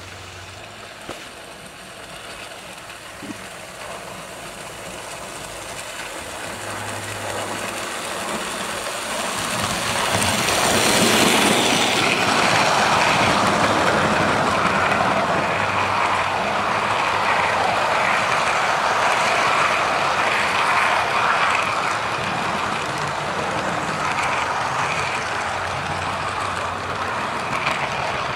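Hornby OO-gauge model train, the Duchess of Montrose locomotive with fourteen coaches, running along the track. The rolling sound grows louder over the first ten seconds or so as the train approaches, reaches its loudest about eleven seconds in, and then holds steady while the long rake of coaches runs past.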